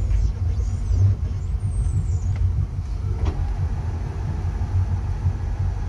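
Wake boat's inboard engine running at idle: a steady low rumble.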